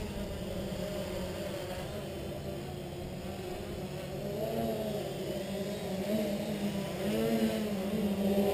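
Talon Hex hexacopter's six electric motors and propellers buzzing as it hovers, the pitch wavering up and down as the flight controller holds it against gusty wind, getting louder in the second half. Wind rumbles on the microphone underneath.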